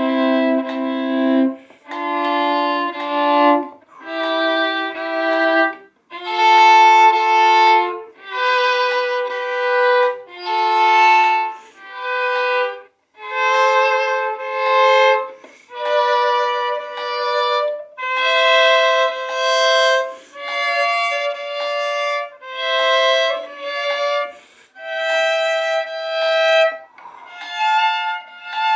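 Solo violin bowing double-stopped thirds: a string of two-note chords, each held for a second or two with short breaks, stepping up and down in pitch in imitation of car horns.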